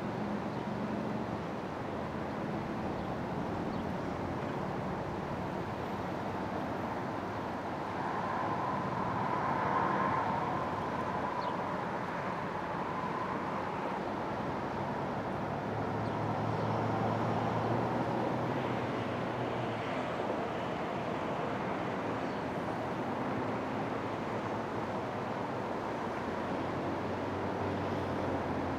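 Road traffic passing: a steady rumble of vehicle engines and tyres, growing louder twice as vehicles go by close.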